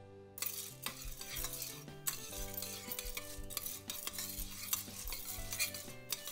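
Metal spoon stirring raw popcorn kernels with oil and salt in a stainless steel pot, the hard kernels rattling and scraping against the metal. It starts about half a second in. The pot is not yet heated, so nothing is frying.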